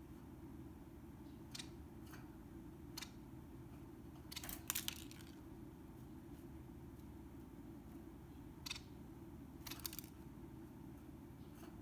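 Scattered sharp little clicks and taps from a Bengalese finch moving about and pecking, with a quick cluster of them about four to five seconds in. They sit over a steady low hum of room noise.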